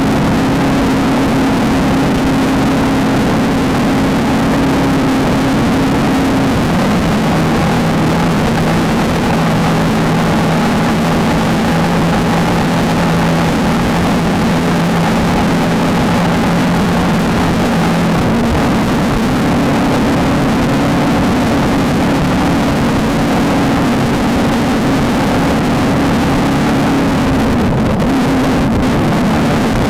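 Off-road race vehicle's engine running hard under a steady haze of wind and terrain noise. The engine note drops about a quarter of the way through and climbs back up a little past the middle.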